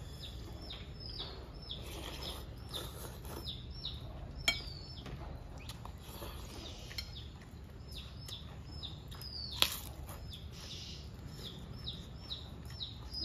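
Small birds chirping over and over in short, high, falling notes. Two sharp clinks of a spoon against a bowl, the louder one about ten seconds in.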